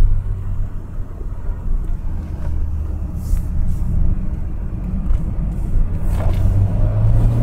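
Renault Mégane Coupé's engine and tyre noise heard from inside the cabin: a steady low drone. The engine note picks up slightly near the end.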